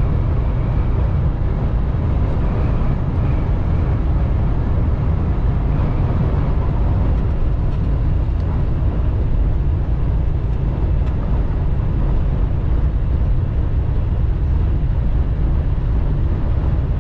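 Steady drone inside a semi-truck's cab at highway speed, with engine and road noise heaviest in the low end and no change in level.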